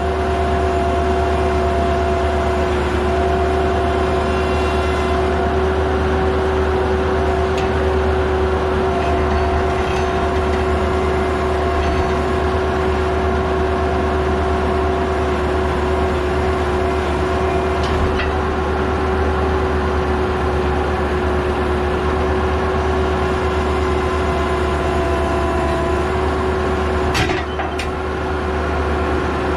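Engine of a heavy lifting machine with forks and a boom running steadily, with a steady whine over its low rumble. A single metallic clank comes near the end.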